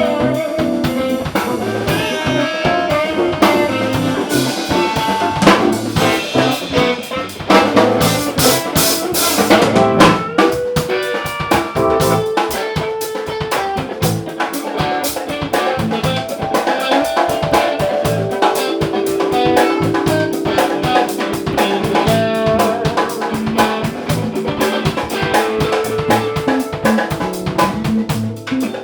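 Band jam in A minor: guitar playing over a drum kit with a steady beat, with a brief cymbal wash about eight seconds in.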